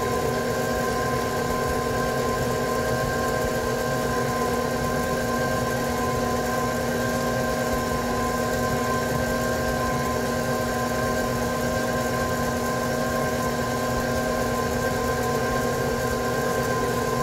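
Electric bowl-lift stand mixer running at a steady speed, its motor humming evenly while the flat paddle beats thick choux paste in a stainless steel bowl to work in an added egg.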